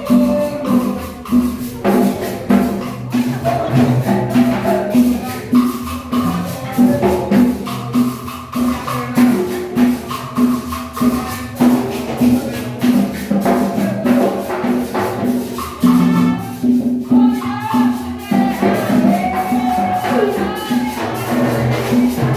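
Upbeat music with a steady, quick beat and shaker percussion.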